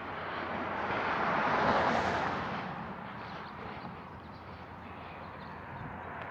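A vehicle passing by: its noise swells to a peak about two seconds in and fades away over the next second or so, over steady outdoor background noise.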